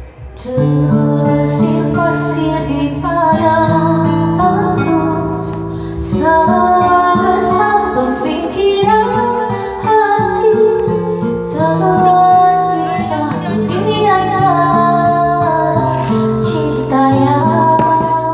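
Karaoke backing track playing through the room's speakers, with a woman singing the pop ballad along with it through a microphone. The music starts about half a second in.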